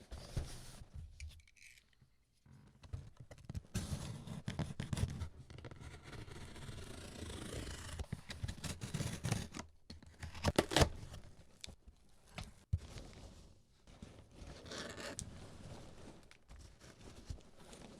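Keyboard parts' packaging being handled and opened by hand: irregular cutting, tearing and scraping, with one sharp click about two-thirds of the way through.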